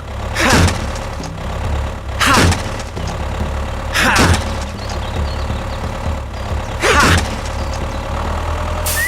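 Small motor running steadily with a low hum, broken by four brief louder sweeps that fall in pitch, about every two seconds.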